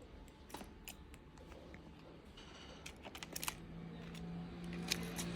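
Small, sharp clicks and scratches of a budgie's claws and beak on a wooden desk drawer, irregular and scattered. About three seconds in, a low steady hum comes in underneath.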